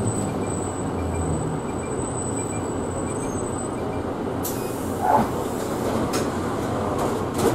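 Route bus heard from inside the passenger cabin: the engine runs with a steady low rumble. A faint high whine fades out partway through, and a hiss rises from about two-thirds of the way in.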